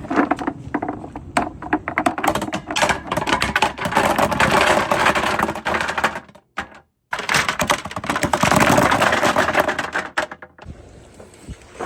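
Many glass marbles rolling and clattering down a wooden marble run, a dense stream of rapid clicks and knocks that stops briefly about seven seconds in, then resumes and thins out to lighter clicking near the end.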